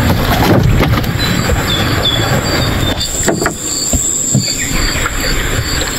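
A freshly landed barramundi thrashing and slapping against the planks of a wooden boat, with a sharp knock about three seconds in. A steady high-pitched whine runs underneath.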